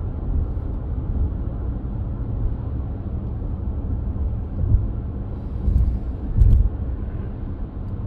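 Road noise inside a moving car's cabin at highway speed: a steady low rumble from tyres and engine, with a few louder low thumps in the second half.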